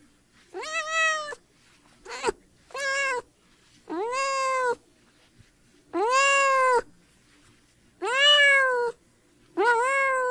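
Domestic cat meowing repeatedly: seven drawn-out meows, each under a second long and rising then falling in pitch, with short pauses between them. The third is a brief, clipped one.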